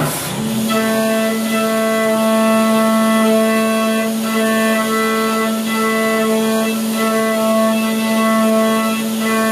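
Background music: a string piece with a held low note under a changing line of notes.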